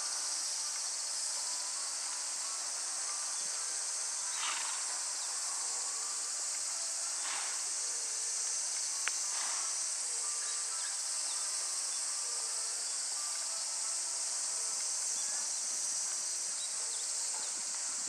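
A steady, high-pitched chorus of insects, with a few faint brief noises at intervals lower down.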